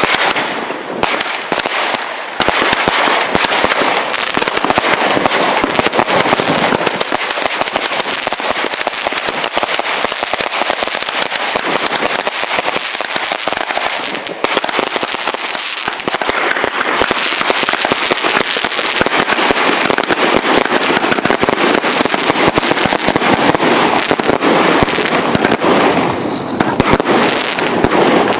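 Consumer firework cakes firing a continuous barrage: rapid launch shots and dense crackling from the bursts, with a short lull a little before halfway.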